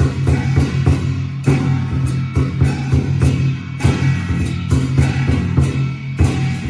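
Background music: a pop-rock backing track with guitar, bass and a steady drum beat.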